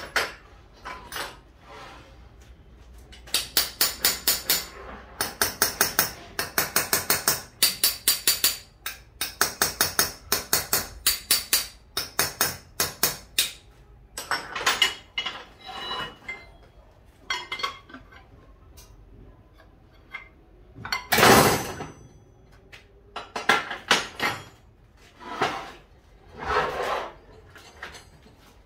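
Light hammer tapping on metal in bursts of quick, ringing strikes, about seven a second, with short pauses between bursts. A louder rush of noise lasting about a second comes about two-thirds of the way through.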